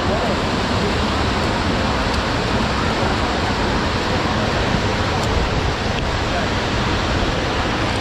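Steady rushing noise of river cascades, mixed with wind buffeting the microphone.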